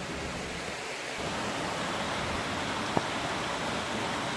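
Steady rushing of river water running through a rocky glen, with one brief click about three seconds in.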